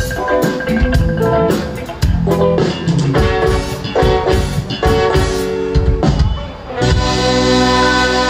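A live pop-rock band starting an upbeat song: drum kit hits and short, punchy chords in a steady rhythm, a brief break about six and a half seconds in, then sustained chords ringing out.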